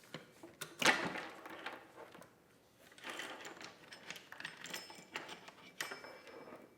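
Saw chain of a Husqvarna 120 Mark II being worked off the guide bar and clutch sprocket by hand, its metal links clicking and rattling against the bar. The loudest clatter comes just under a second in.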